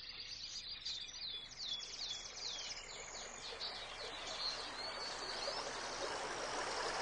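Birds chirping in a quick run of short, high, falling calls over the steady rush of running water, which grows louder toward the end.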